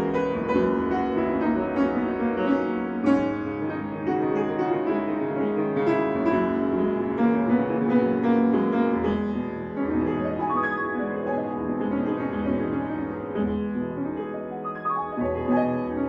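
Grand piano played solo: a continuous, flowing passage of many overlapping notes, without pause.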